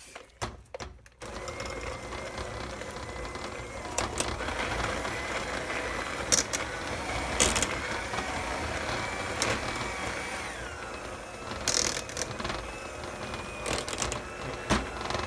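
Electric hand mixer running, its beaters mashing boiled potatoes in a stainless steel pot. The motor starts about a second in, its whine drops in pitch about ten seconds in, and the beaters clack sharply against the pot now and then.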